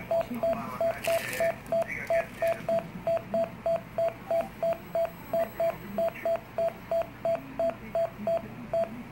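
Philips HeartStart MRx monitor-defibrillator sounding its heartbeat beep, a short, single-pitched tone about three times a second in step with a supraventricular tachycardia of about 185 beats a minute. The beeps stop near the end as the adenosine breaks the fast rhythm.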